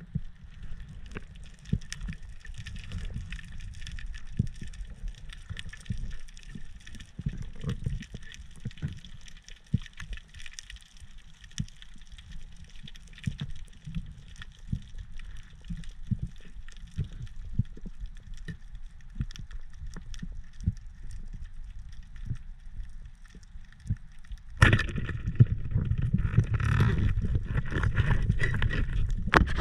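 Underwater ambience heard through an action camera's housing: a low rumble of moving water under a constant crackle of small clicks. About 25 seconds in, a sudden, much louder rush of water noise starts and lasts about five seconds.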